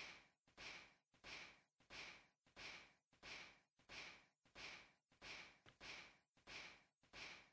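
Very faint, evenly spaced puffs of breath-like hiss, about three every two seconds, in the recorded soundtrack.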